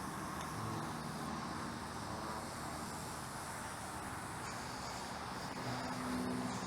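Steady, fairly quiet outdoor background noise with a faint low hum, swelling slightly about six seconds in.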